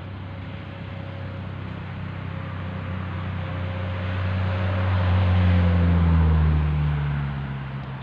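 An engine passing by: a low drone that grows louder, peaks about five to six and a half seconds in, then drops in pitch and fades as it goes away.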